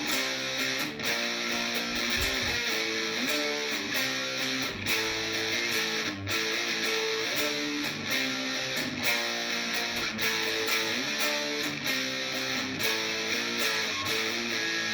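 Epiphone SG Modern Figured electric guitar played through a distorted tone, a riff of moving notes and chords with a few brief stops in the playing.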